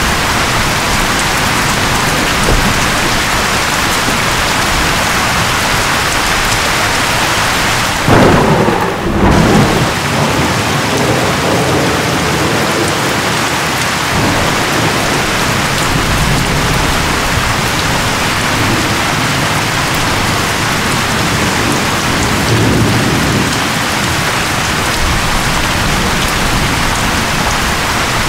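Storm wind and rain as a steady loud hiss. About eight seconds in there is a louder low rumble lasting a second or so, the loudest moment.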